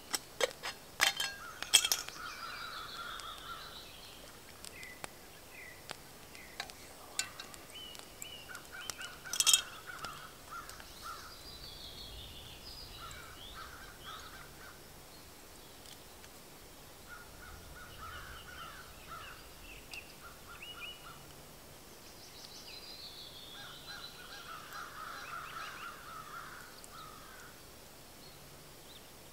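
Birds singing and calling in repeated short phrases. A few sharp clicks and knocks in the first ten seconds are the loudest sounds, one about two seconds in and one near ten seconds.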